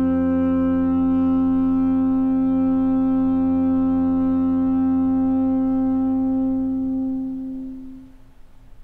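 Saxophone and bowed double bass holding one long sustained chord together, the saxophone's tone on top and the bass low beneath it. The chord fades away about seven to eight seconds in.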